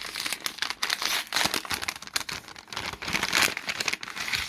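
Packaging crinkling and rustling in irregular bursts as an item is unwrapped by hand; it stops abruptly at the end.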